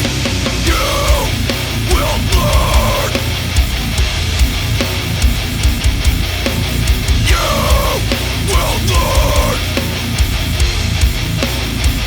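Heavy, aggressive metal music with distorted guitars and pounding drums, playing continuously without vocals. A squealing, bending guitar figure repeats twice.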